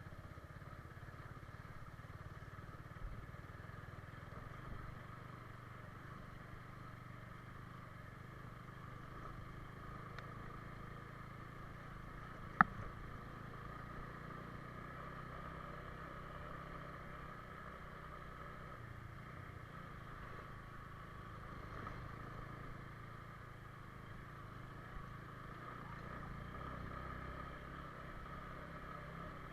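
Faint, steady hum of a vehicle engine on the move, with a single sharp click about twelve seconds in.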